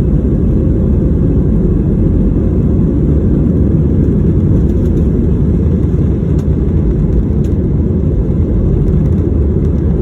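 Cabin noise of an Allegiant Air jet airliner during takeoff: a loud, steady, deep rumble of the engines and rushing air.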